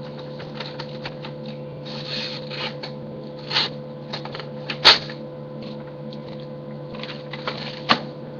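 Short rustles, scrapes and clicks of a paper plate and a small pocket-knife blade being handled, with a sharp click about five seconds in and another near the end. A steady electrical hum runs underneath.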